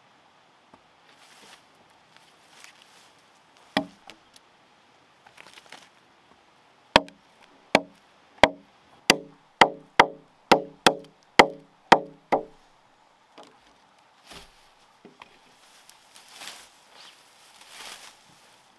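Wood being chopped by hand with a blade: a single strike, then a run of about eleven strikes that quickens to roughly two or more a second. Each strike rings briefly.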